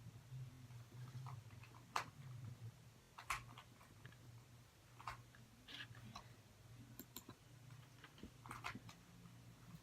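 Faint, short clicks at irregular intervals, about six in all, over a low steady hum.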